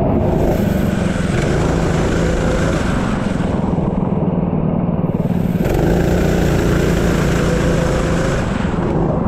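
Racing engine under power on track, accelerating, easing off briefly about four to five seconds in, then accelerating again, its pitch climbing, over a steady low rumble.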